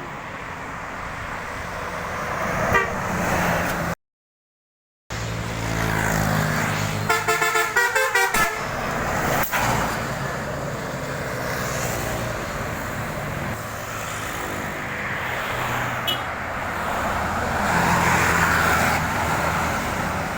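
A bus's Basuri telolet horn playing a quick, choppy run of musical tones about seven seconds in, over the steady noise of passing traffic and bus engines. The sound cuts out completely for about a second around four seconds in.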